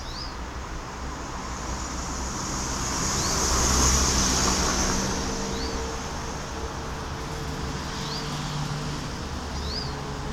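Road traffic going by, swelling as a vehicle passes about four seconds in. Over it a small bird gives five short, high, rising chirps, spaced a second or more apart.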